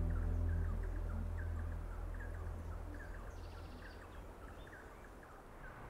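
A low sustained music drone fading out over the first couple of seconds. Under it runs an outdoor ambience of many faint, rapid small chirps, with a brief higher trill about three seconds in.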